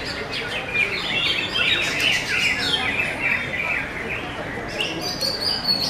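Caged greater green leafbirds (cucak hijau) singing: a dense, fast stream of chirps and whistled notes.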